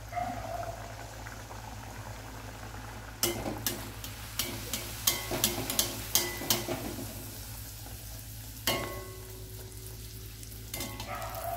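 Poori deep-frying in hot oil in a steel kadai: a steady sizzle, with a run of sharp clicks and crackles from about three to seven seconds in and one more near the end, as a slotted spatula presses the poori under and splashes oil over it so that it puffs.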